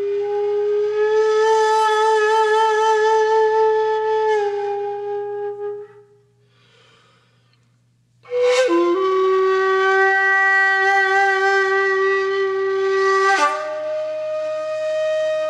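Background music of a flute-like wind instrument holding long notes. The first note wavers with vibrato, a near-silent gap of about two seconds falls in the middle, and then a new long note starts and steps up in pitch near the end.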